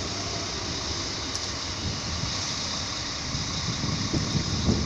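A train in the station, giving a steady rumble and hiss, with wind buffeting the microphone in the last second.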